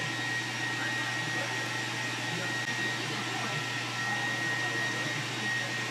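Steady whir of a running machine, with a constant low hum under it and a faint high steady whine.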